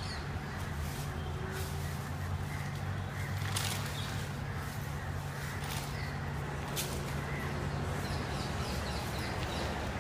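Birds calling over a steady low hum; the hum stops about eight seconds in.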